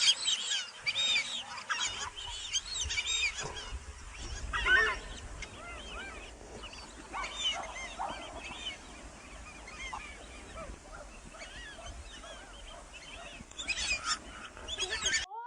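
A flock of geese honking, many calls overlapping at once; busiest in the first few seconds and again near the end, then cutting off abruptly.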